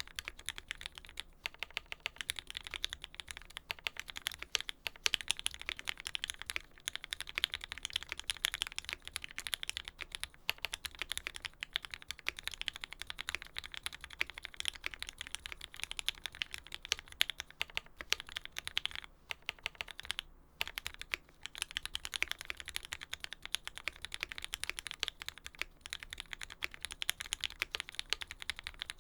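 Fast, continuous typing on a custom mechanical keyboard with an aluminium plate, lubed Tealios V2 linear switches fitted with Cherry black top housings, and GMK keycaps. It is a dense run of keystroke clacks with two brief pauses a little past two-thirds of the way through.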